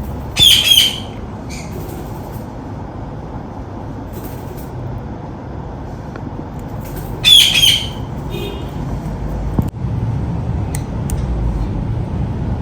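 Ringneck parakeet giving two loud, harsh screeching calls, one right at the start and one about seven seconds in, with a couple of softer chirps between, over a steady low background rumble.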